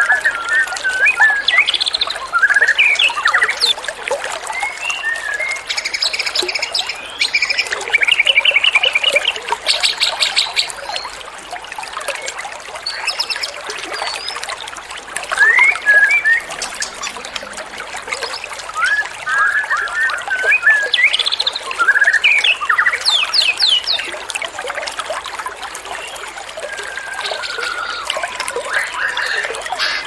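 Small songbirds singing in varied phrases of chirps, fast stuttering trills and short whistles, one phrase after another, over a steady trickle of running water.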